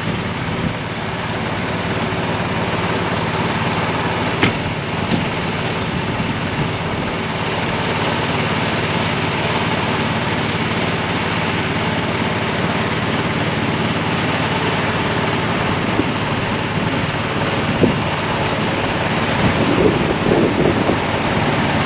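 A ute's engine running steadily at idle, then the ute pulling slowly forward in the second half.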